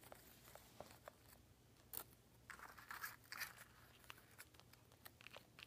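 Faint handling noise of plastic toy figures being picked up and moved by hand: scattered small clicks and brief rustles, with two slightly louder rustles about halfway through.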